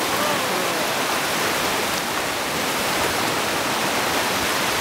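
Whitewater rapid rushing steadily: a loud, even wash of churning water pouring over rocks.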